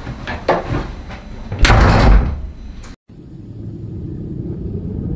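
A door slammed shut hard about a second and a half in, after a couple of lighter knocks. The sound then cuts out abruptly and a low rumbling drone slowly swells.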